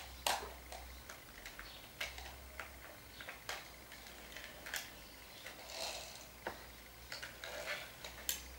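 Faint, irregular clicks and soft rustles of objects being handled close to the microphone.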